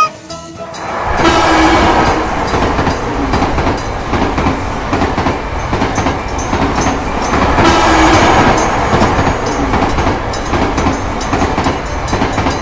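A train running past, its wheels clattering rhythmically over the rail joints. It swells louder around two seconds in and again around eight seconds, with a short steady horn-like tone at each swell.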